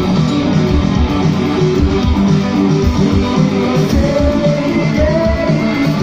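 Live rock band playing: electric guitars, bass guitar and drums, with a steady run of kick-drum hits. From about four seconds in, a long held note slides slowly upward over the band.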